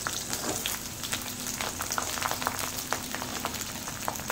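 Hot oil in a metal wok sizzling and crackling with frequent small pops as chunks of eggplant are dropped in to fry.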